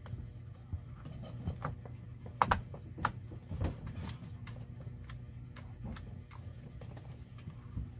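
Irregular clicks and knocks of an electric drill's plastic housing and motor parts being handled and turned over by hand, the loudest a little over two seconds in and again about three seconds in. A steady low hum runs underneath.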